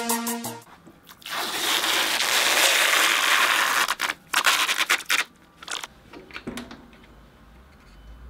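Protective plastic film being peeled off an acrylic case side panel: a long tearing rustle for about two and a half seconds, then a burst of sharp crackles as the film comes free, with a few fainter crinkles after.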